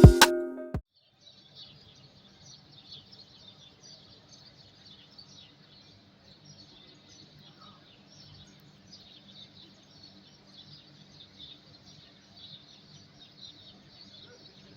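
A short musical intro cuts off within the first second. After it comes faint outdoor ambience of many birds chirping continuously at a high pitch over a low background hum.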